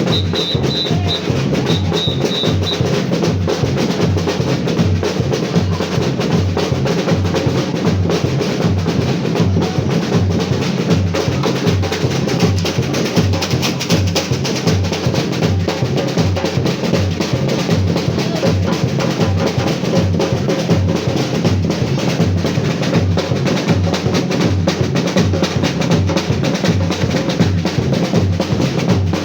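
Batucada: a Brazilian samba percussion section drumming a fast, steady rhythm, with regular deep bass-drum beats under dense snare and drum strokes.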